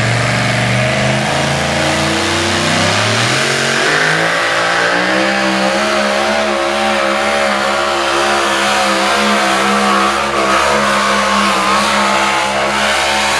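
Supercharged pulling-truck engine revving up as the truck launches with the sled about three seconds in. It then holds at high revs with its pitch wavering as the truck pulls down the track.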